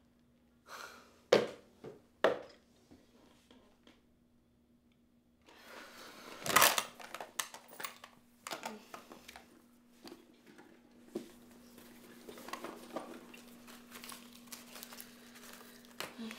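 Handbag being rummaged through on a bed, its contents knocking and rustling: two sharp knocks early, then a busier run of clatter and rustling with one loud knock. A faint steady hum underneath.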